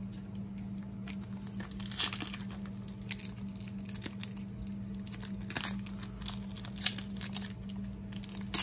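A foil trading-card pack being torn open and crinkled by hand, in irregular crackles and rips.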